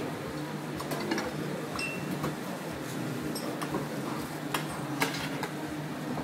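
Spoons and serving utensils clinking lightly against porcelain soup plates and a steel pot: a few scattered clinks, the sharpest about five seconds in, over a steady low room hum.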